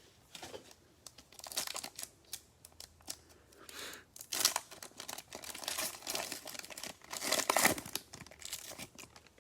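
Plastic-foil trading-card pack being torn open, its wrapper crinkling and rustling in irregular bursts.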